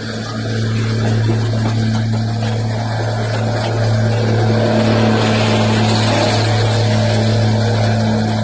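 Rushing wind and wheel rumble of a moving passenger train, heard from an open coach doorway while a Vande Bharat train runs past close alongside on the next track. A steady low hum runs under it, and the noise grows a little louder about four seconds in.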